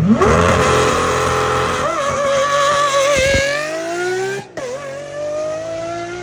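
Lamborghini Aventador SVJ's naturally aspirated V12 accelerating hard: the engine note climbs steeply at the start, holds, then climbs again, with a brief cut in the sound about four and a half seconds in before it rises once more.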